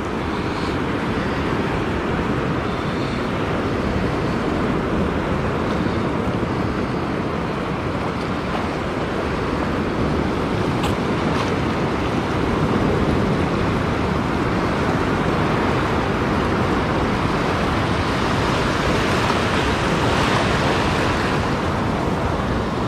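Shallow surf washing in and foaming around the legs, a steady rush of breaking waves.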